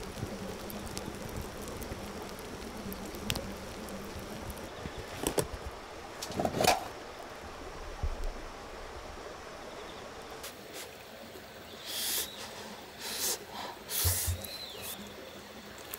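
Outdoor camp ambience with a few sharp crackles from a wood fire's smouldering embers, then several bright scrapes near the end as a spoon works in an aluminium mess tin.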